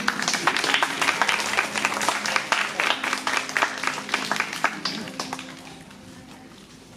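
An audience applauding: many hands clapping at once, loud at first and then thinning and fading away over the last two seconds.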